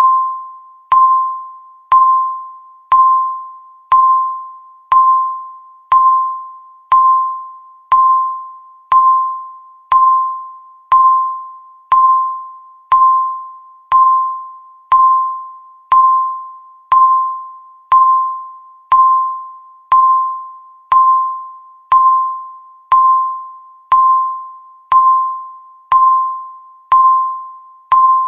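Countdown timer beeping once a second: a single electronic chime-like tone at the same pitch each time, starting sharply and fading away before the next.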